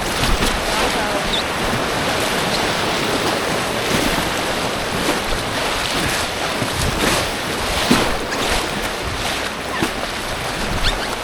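Creek whitewater rushing steadily, with frequent splashes against a two-person inflatable kayak running a rapid.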